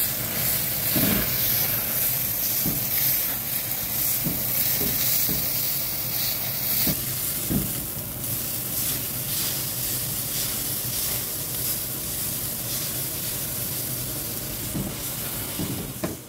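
Veal steak sizzling on a hot cast-iron ridged grill pan, with a few short knocks and scrapes of wooden spatulas against the pan.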